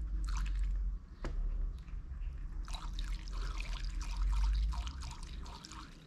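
Gasoline being poured into the fuel tank of a GX35-clone four-stroke grass cutter, trickling and dripping, with a steady low rumble underneath. There is a single sharp click about a second in.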